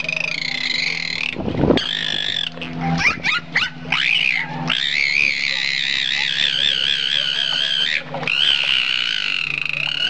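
An animal making a string of drawn-out, high, wavering calls with short breaks between them, a few quick rising-and-falling yelps near the middle and one long call of about three seconds.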